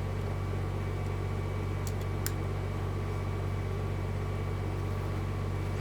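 Steady machine-like room hum, as from a fan or air conditioner, with two faint light ticks about two seconds in.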